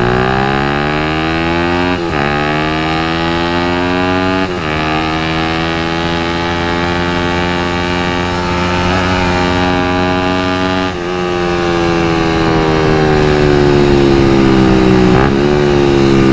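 Suzuki Satria FU 150 cc four-stroke single-cylinder engine, fitted with a Lone Rider aftermarket exhaust, pulling while riding. Its note breaks briefly about four times as gears are changed, and it grows louder near the end.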